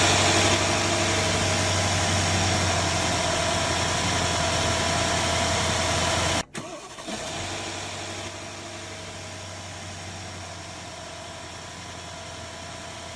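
Freshly rebuilt Mercedes-Benz S500 V8 engine idling steadily just after being started. About halfway through, the sound cuts off for an instant and then carries on noticeably quieter.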